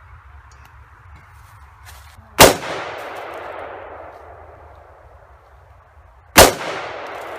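Two AR-15 rifle shots about four seconds apart, each a sharp crack followed by a long echoing tail.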